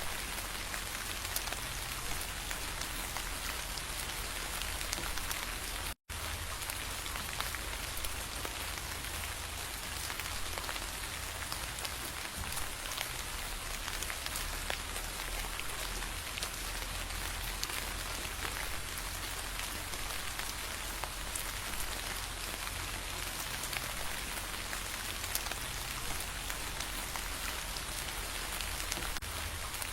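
Steady rain falling, a dense hiss with many individual drops ticking on a surface. The sound cuts out completely for an instant about six seconds in.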